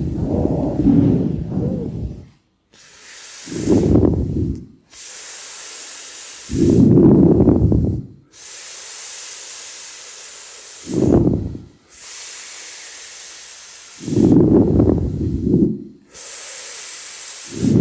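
A group of people breathing audibly in unison: slow, loud breathy swells about every three to four seconds, with a steady thin hiss between them and abrupt short pauses between breaths.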